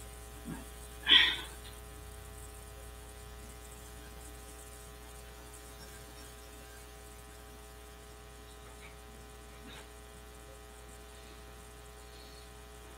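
Steady electrical mains hum with a buzz of many even overtones. There is one brief, louder noise about a second in and a few faint ticks later on.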